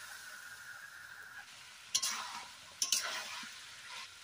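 Chicken and masala sizzling in hot oil in a metal kadai, while the meat is fried down (kosha). A metal spatula scrapes and stirs through the pan in sharp strokes about two and three seconds in.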